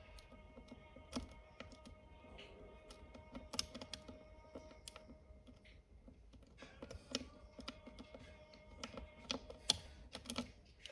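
Faint, irregular metallic clicks and scrapes of a snake rake being worked in and out of a Häfele wardrobe drawer lock, with tension held on the plug as it raked toward opening.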